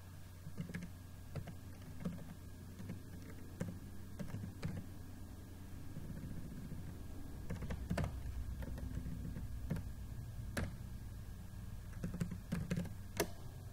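Typing on a computer keyboard: scattered, irregular keystrokes with pauses between them, over a faint steady low hum.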